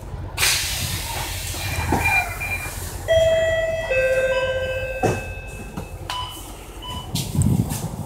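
MAN A95 double-decker bus stopped at its berth with the engine idling low: a sharp hiss of compressed air about half a second in, fading over a second or so, then electronic tones and short repeated beeps from the bus.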